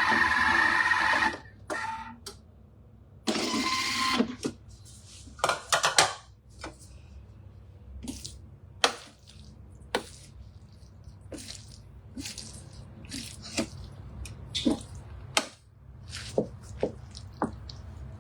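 A loud rushing noise for about a second and again briefly about three seconds in, then a utensil scraping and knocking irregularly against a pan as a large batch of rice is stirred.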